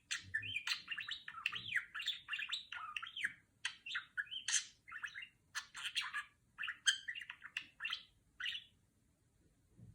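Budgerigar chattering: a fast, unbroken run of short chirps, buzzy warbles and clicks that falls silent near the end.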